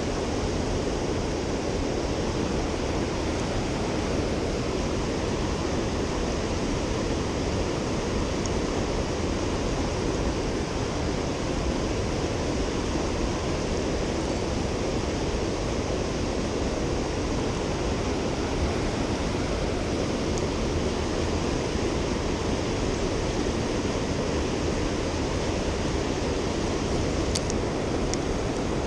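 Mountain river rushing over its bed, a steady, even roar of flowing water.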